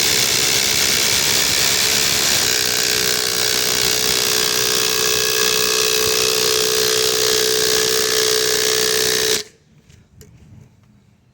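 Milwaukee Gen 3.5 and Ridgid Octane cordless impact drivers hammering 5-inch ledger screws in at the same time: a loud, continuous rattling hammer noise that stops suddenly about nine and a half seconds in as the screws are driven home.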